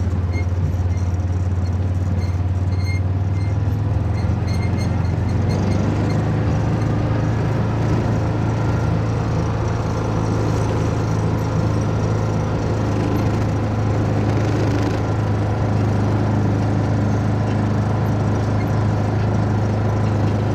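A vehicle engine running steadily, a loud, unbroken low drone.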